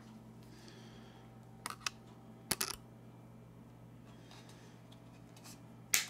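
A few small sharp plastic clicks as a zip tie on a snowblower chute joystick assembly is handled, then near the end a louder crisp snap as flush cutters clip through the zip tie.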